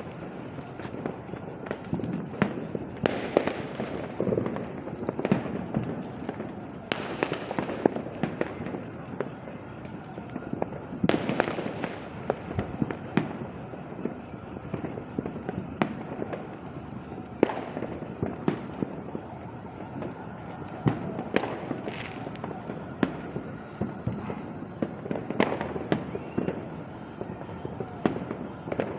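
Many fireworks and firecrackers going off all around: a constant rumble of distant bangs, with louder single cracks every second or so at irregular intervals.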